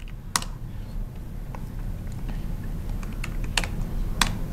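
Laptop keyboard keystrokes: a few scattered, sharp key clicks over a low steady hum.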